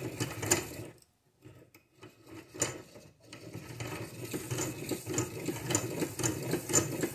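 Hand-cranked piston ring filer's abrasive stone grinding the end of a Kohler Magnum M18 exhaust valve stem: a rhythmic mechanical rasp with a click about twice a second. It stops briefly about a second in, then starts again. The grinding takes material off the stem to loosen a valve clearance that is still too tight.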